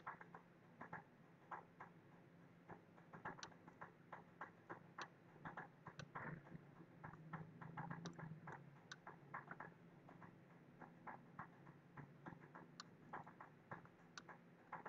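Faint, irregular computer mouse clicks, a few a second, from selecting parts and moving the view in CAD software.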